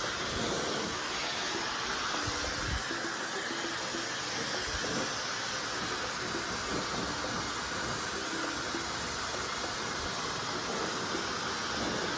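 Dyson Supersonic hair dryer running steadily, an even rush of blown air.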